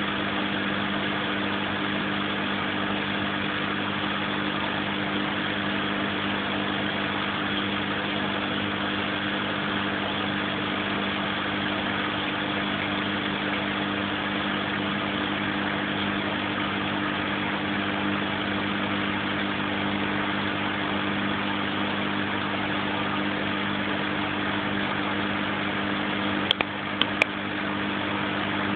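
Steady mechanical hum with a low drone that holds an even level throughout. Three sharp clicks come close together near the end.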